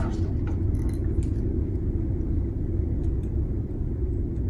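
Steady low rumble of background noise, with a few faint light taps from string being handled against a ruler on a tabletop.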